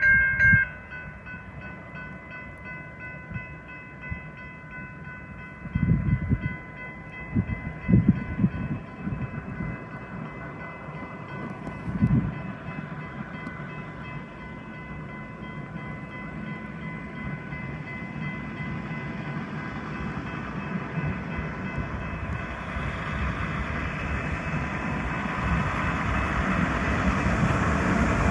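Grade-crossing warning bell ringing steadily. Several brief low rumbles come in the first half. Then a rail-mounted semi truck pulling gondola cars approaches, its engine and rolling wheels growing steadily louder through the last several seconds.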